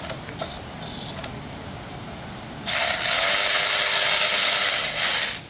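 A power ratchet runs steadily for nearly three seconds, starting a little over halfway through, as it backs out the bolts holding the factory shifter to the MT82 transmission. A few light clicks come before it.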